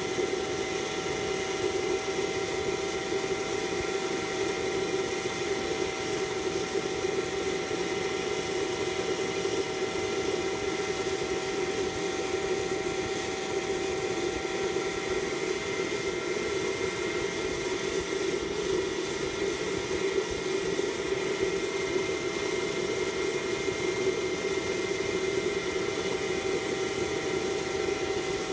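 Fire-extinguisher waste-oil stove burning under forced air from a blower pipe: a steady rushing burner noise with a few steady tones on top, unchanging throughout.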